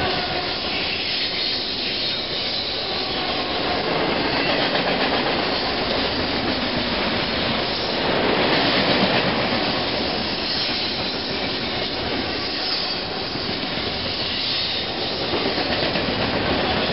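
Intermodal freight train's cars passing at speed close by: a steady noise of steel wheels running on the rails, with no pause or change.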